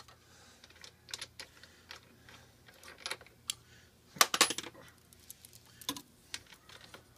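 Light metallic clicks and clinks of brass service-valve caps and tools being handled, with a louder clattering burst of clinks a little after four seconds in.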